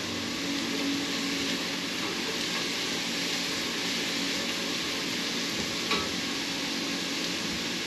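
Diced onions and garlic sautéing in a pot: a steady sizzle as a spatula stirs them, with one short knock about six seconds in.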